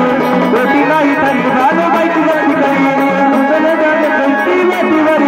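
Marathi gondhal folk music played live without singing: an ornamented, wavering melody carried over a steady hand-drum beat.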